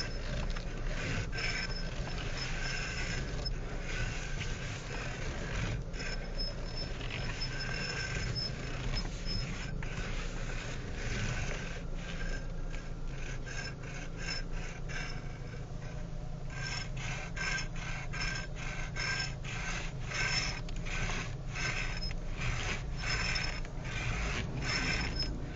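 Electric power steering of a 2012 Renault Mégane GT making its annoying noise as the wheel is worked. It is a rapid clicking that comes and goes in spells, denser in the second half, over the steady hum of the idling engine. This noise is common on these GTs.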